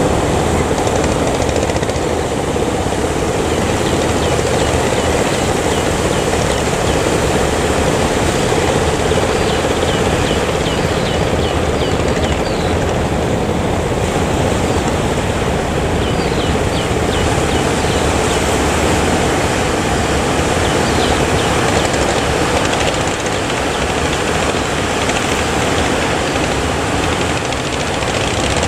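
Fishing boat engine running steadily under a heavy wash of wind and wave noise, with faint short high chirps now and then.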